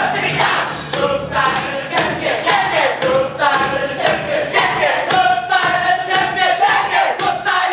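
A large group of young voices singing and chanting together in unison, with music behind them.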